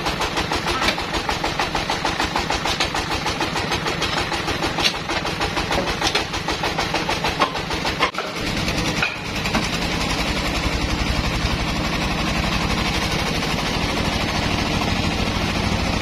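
Sawmill engine running, with a fast, even pulse and a few sharp knocks in the first half; after a short break about eight seconds in, it runs on steadier.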